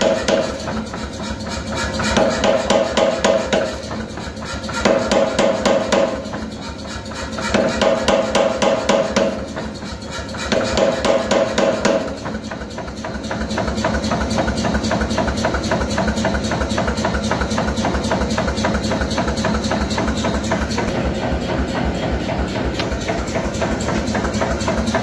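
Power hammer pounding hot steel in a swage: five quick runs of rapid blows, each about a second and a half, with short pauses between. From about halfway on the machine keeps running with a steady, even mechanical clatter and no pauses.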